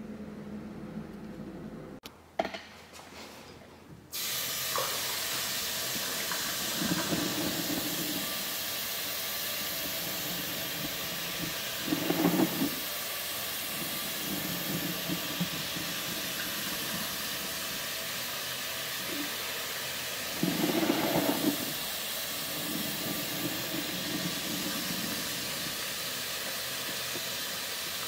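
Single-handle chrome kitchen faucet running into the sink: a steady rushing hiss of water that starts abruptly about four seconds in, swelling fuller a few times. Before it, a low steady hum and a sharp click.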